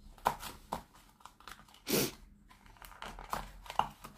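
Small cardboard gift box being handled and opened on a table: a string of short scrapes, taps and rustles, the loudest a brief rustle about two seconds in.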